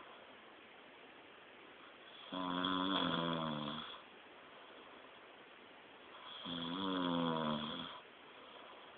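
A sleeping person snoring: two long snores, each about a second and a half, roughly four seconds apart.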